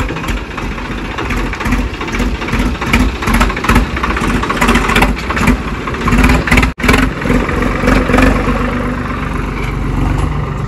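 Swaraj 855 FE tractor's three-cylinder diesel engine running as it pulls a super seeder along a track, with irregular clatter and rattling over the first part. The sound breaks off for an instant about two-thirds of the way through, then the engine runs on more evenly.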